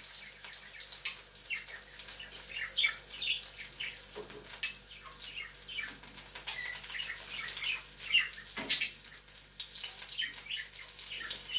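Zucchini slices frying in hot oil in a pan, a steady irregular crackle of spitting oil. A couple of soft knocks stand out about four and nine seconds in.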